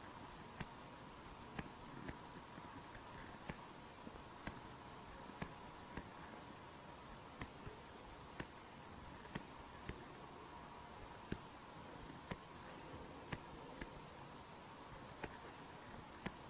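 Mechanical prosthetic heart valve clicking with each heartbeat: sharp, crisp clicks about once a second, on several beats followed by a second click about half a second later.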